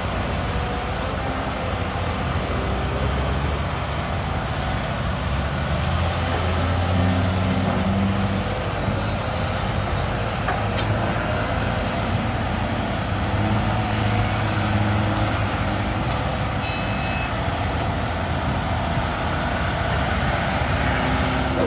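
Heavy construction machinery's diesel engine running steadily, its low note swelling under load twice, about six and thirteen seconds in.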